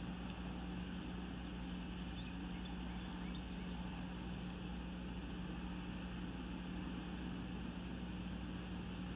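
Steady low hum with an even hiss behind it, the same from start to end, with no clear eagle calls.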